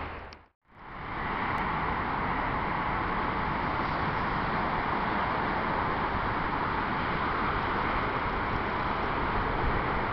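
The sound cuts out for a moment about half a second in. It then gives way to a steady hiss of distant road traffic in the open air, with no train passing.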